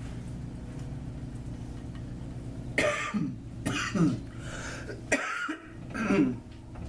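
A person coughing several times in short bursts, about three seconds in, over a steady low hum.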